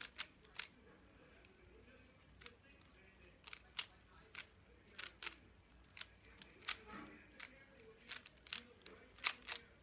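A 3x3 speed cube's layers being turned by hand in quick, irregular clicks and clacks, often a few in a row, as the solve is worked through.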